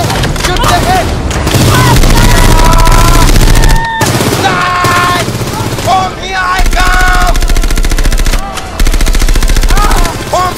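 Rapid automatic rifle fire in long sustained bursts, breaking off briefly about four seconds in and again about eight and a half seconds in.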